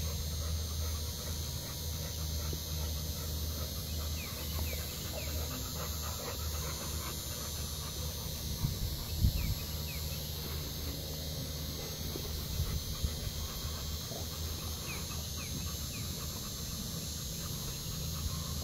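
Two bully-breed dogs panting, over a steady low hum, with a couple of brief knocks about nine seconds in.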